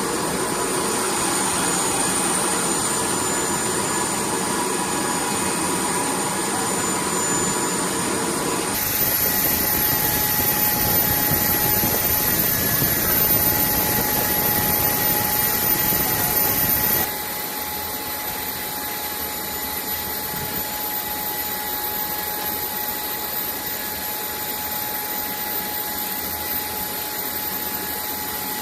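Jet engines of a C-5M Super Galaxy running: a steady dense rush of noise with a thin high whine over it. The sound changes abruptly twice, at about nine and seventeen seconds in, and is quieter after the second change.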